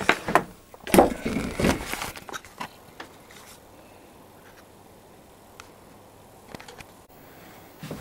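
Handling noise: a cluster of knocks and clatters in the first two seconds as the wooden hive frame and camera are handled, then quiet room tone with a few faint ticks.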